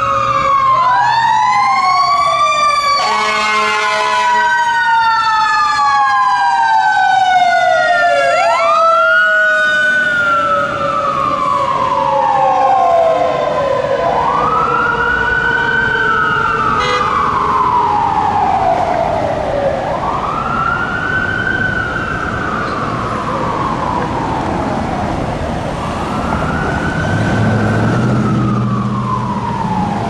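Fire engine and tiller ladder truck sirens wailing in long rising-and-falling sweeps, two sirens overlapping at first, with an air-horn blast about three seconds in. Later a single siren keeps wailing, each sweep climbing quickly and falling slowly every six seconds or so.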